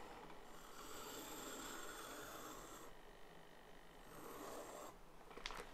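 Faint scratching of a drafting compass's pencil lead dragging around paper as a circle is drawn, in two sweeps with a short pause between, and a small click near the end.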